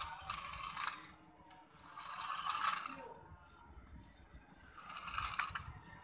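Small geared toy motors of a homemade remote-control toy excavator whirring and rattling in three short bursts as it is driven in spurts across concrete.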